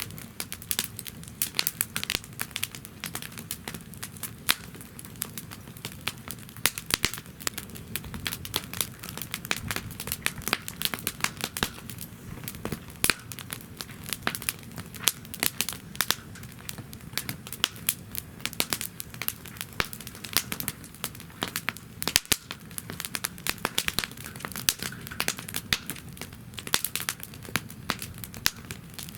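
Wood fire in a fire stand burning steadily, crackling and popping irregularly with many sharp snaps, over a low soft rumble of the flames.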